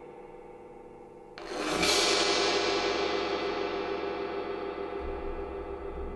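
A 22-inch Chinese wind gong is struck with a soft mallet about a second and a half in. It gives a bright, shimmering wash that swells over about half a second, then rings on with many overlapping tones, slowly fading as the high shimmer dies away first. Before the stroke, the ring of an earlier stroke is dying away.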